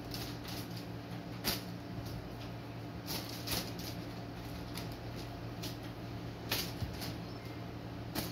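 A few short rustles and scuffs of a duvet as a ginger British Shorthair kitten pounces on a feather wand toy on a bed, over a steady low hum in the room.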